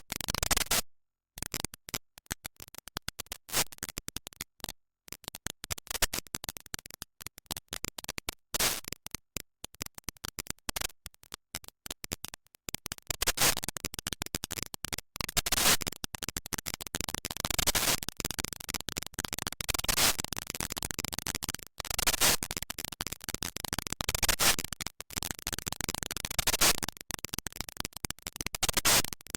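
Computer-generated sonification of NASA Ulysses spacecraft micrometeorite-impact data: a rapid, irregular stream of crackling clicks and noise bursts. It is sparse with short silent gaps at first, then denser and louder from about halfway.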